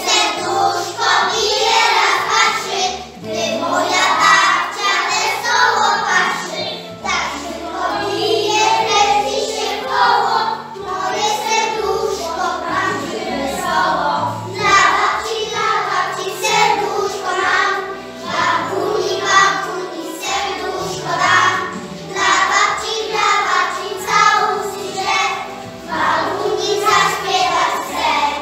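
A group of young children singing a song together in Polish over instrumental accompaniment.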